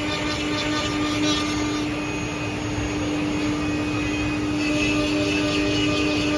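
Four-head CNC mortising machine running steadily, its router spindles giving a constant hum over a wash of machining noise. A second, higher tone joins about four and a half seconds in.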